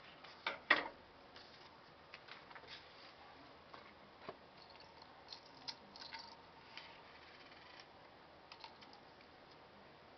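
Handling sounds at a workbench: rustling of vest fabric being moved, with a louder rustle and click cluster about half a second in, then scattered faint clicks and taps of small parts and tools being picked up and set down.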